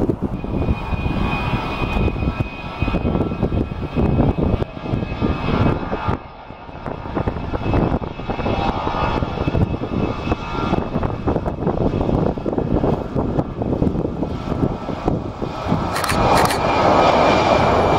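Air France Airbus A319's CFM56 jet engines at high power during its takeoff roll: a steady rumble with a thin high whine, growing louder near the end as the airliner comes closer.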